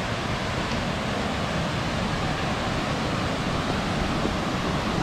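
Mountain stream cascading over boulders down a steep, rocky slope: a loud, steady rush of water.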